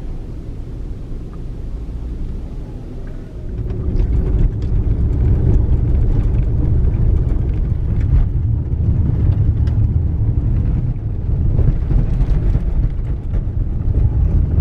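Toyota RAV4 heard from inside the cabin. Its engine runs softly at low speed at first; about four seconds in, a louder rumble of tyres on a gravel road takes over, with scattered clicks of small stones.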